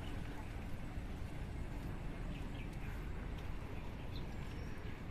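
Outdoor street ambience recorded while walking, dominated by low wind rumble on the microphone, with a few faint short bird chirps.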